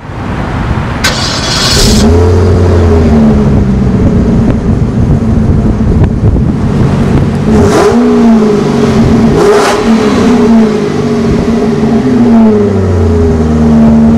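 The 2009 Cadillac XLR-V's supercharged 4.4-litre Northstar V8 heard at its quad exhaust tips, idling and revved up and back down several times.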